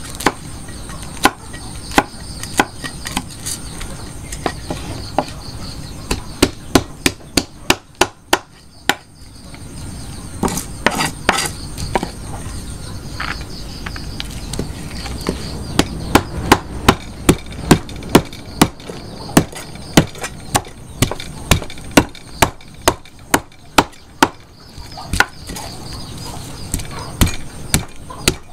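Cleaver strokes scaling a whole red fish on a wooden chopping block. Each stroke is a sharp knock of the blade against the wood, coming in runs of about two to three a second, with a brief pause about a third of the way through.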